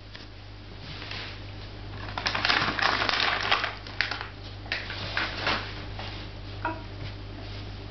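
A small cardboard carton being picked up and handled: a dense run of crackly rustling and rattling clicks lasting about three seconds, over a steady low hum.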